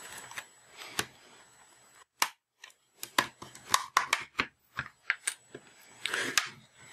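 Plastic snap clips of a tablet's back cover clicking free as a guitar pick is worked along the seam. A scattered run of sharp clicks and snaps, coming thickest after about three seconds.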